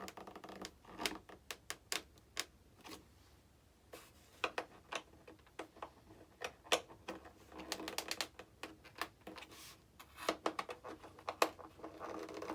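Irregular small clicks and taps of a hand screwdriver driving and snugging screws into an RC model's elevator hinge, with a short lull about three to four seconds in.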